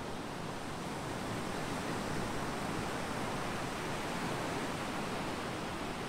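Surf breaking and washing onto a sandy beach: a steady rush of waves that swells slightly in the middle.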